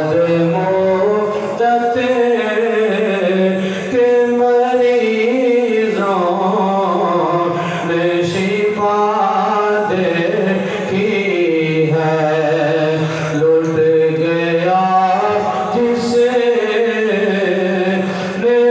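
A man's unaccompanied devotional chanting in long, melodic held notes with ornamented turns, picked up by a microphone.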